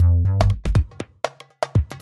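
Background electronic music with a steady drum-machine beat over deep bass notes.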